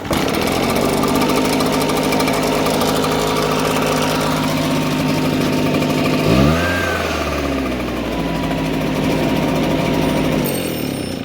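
Echo PB-755T backpack leaf blower's two-stroke engine starting and running steadily, with a brief change in engine speed about six seconds in. Near the end it winds down as the stop switch cuts it off, showing the repaired ground wire now lets the switch shut the engine down.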